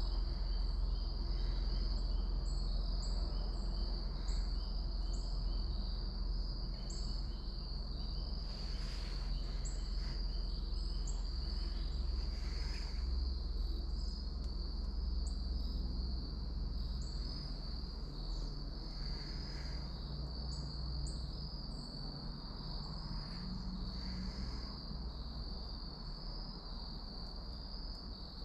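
Insects trilling steadily on one unbroken high note, with short high chirps now and then, over a low steady rumble and a few brief rustles.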